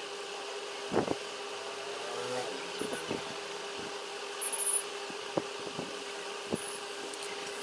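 Light hand-work sounds from cleaning an LED TV panel on the bench: scattered small clicks and short rubbing scratches, about half a dozen, over a steady hum.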